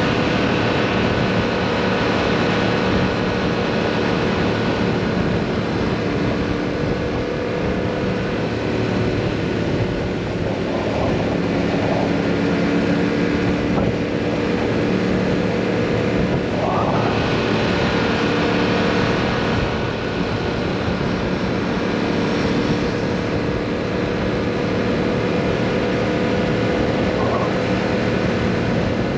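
Yamaha MT-07's 689 cc parallel-twin engine and exhaust running steadily under way, with wind rush on the microphone. The pitch briefly rises a few times.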